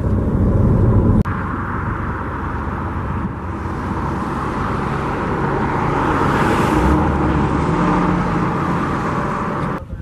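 Steady road noise inside a moving car: a low rumble of tyres and engine with a rush of wind. The sound changes abruptly about a second in, and a brighter hiss swells and fades a little past the middle.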